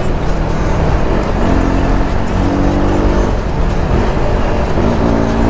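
KTM RC 390's single-cylinder engine running as the bike rides through traffic, its pitch rising with the throttle about a second and a half in and again near the end.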